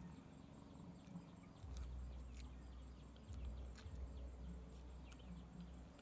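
Eating sounds: scattered small clicks of wooden chopsticks against a turtle-shell bowl as noodles are lifted and eaten. A low wind rumble sits on the microphone from about two seconds in.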